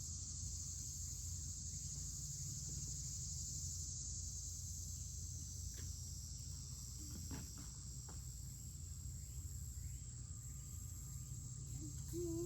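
Steady, high-pitched insect chorus of crickets, with a low rumble underneath and a few faint soft ticks in the middle.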